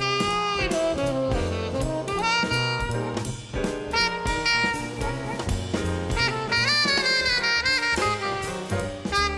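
Live jazz quartet: a tenor saxophone plays melodic phrases, some notes sliding in pitch, over piano, upright bass and a drum kit.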